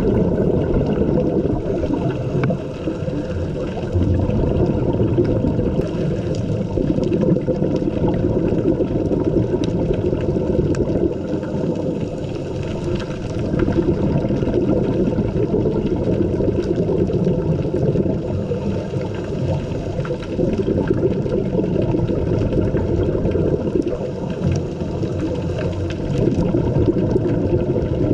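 Muffled underwater ambience picked up through an underwater camera housing: a dense low rumbling wash with the bubbling gurgle of divers' exhaled regulator bubbles, swelling and easing with their breaths.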